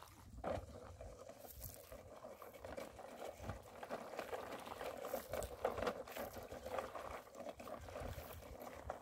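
Small waves lapping and washing over a pebbly shoreline, a faint steady fizzing wash with small crackles.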